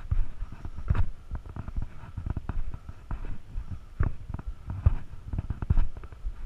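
Hiker's footsteps descending a dusty, rocky trail: an irregular run of low thuds, with occasional sharper crunches and scuffs of boots on dirt and stone.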